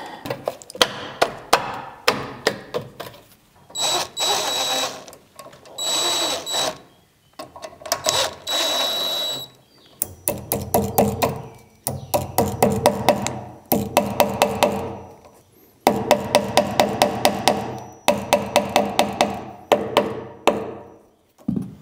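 Cordless drill running in three short bursts with a steady high whine, as screws are driven to fasten a metal electrical box to a wall stud. Sharp clicks and clatter come throughout, followed by a long stretch of rapid, even clicking.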